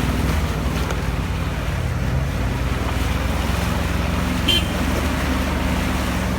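Off-road vehicle engine running steadily at a low, even pitch, with a brief high chirp about four and a half seconds in.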